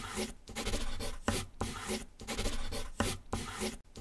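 Handwriting: a pen scratching across a writing surface in a run of short strokes, about two a second, several of them starting with a sharp tick.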